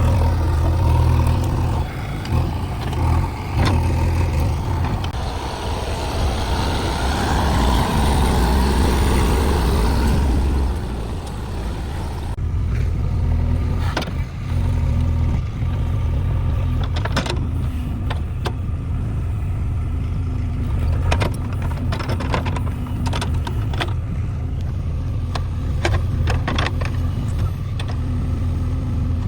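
JCB backhoe loader's diesel engine running and revving under load, swelling louder for a few seconds partway through. From about twelve seconds in it settles to a steadier run, with scattered sharp knocks and clanks over it.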